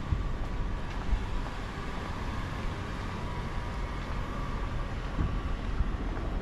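City street ambience: a steady low rumble of traffic with a faint continuous hum.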